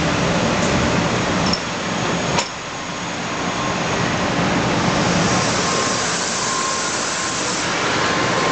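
N700 series Shinkansen train rolling slowly past at close range: a steady rush and rumble of its wheels and running gear. There is a sharp click about two and a half seconds in, and a faint steady high tone from about three seconds on.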